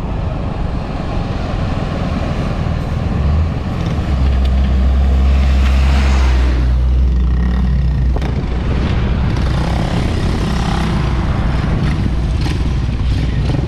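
Motor scooter engine running while riding on the road, getting louder about four seconds in and then holding steady.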